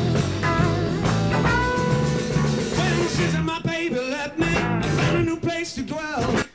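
Street band playing bluesy rock and roll on acoustic and electric guitars with bass, and a man singing.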